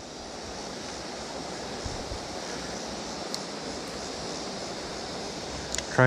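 Steady rushing of the flowing creek's current.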